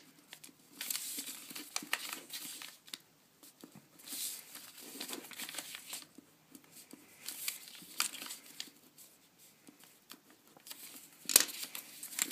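Folded paper fortune teller rustling and crinkling as it is handled and written on with a ballpoint pen, in scattered short bouts. A sharp paper crackle near the end as it is folded back into shape is the loudest sound.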